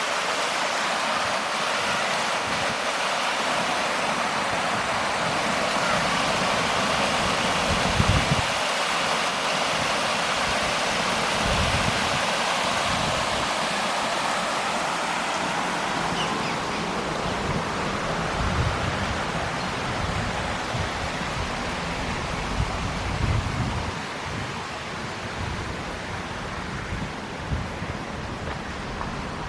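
Steady rush of running water, with low gusts of wind buffeting the microphone now and then.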